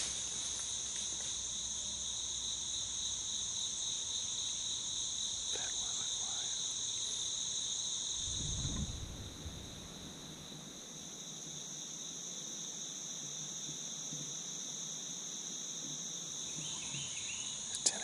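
A steady chorus of insects, an even, high, shrill drone at two pitches, with a brief low thump about halfway through.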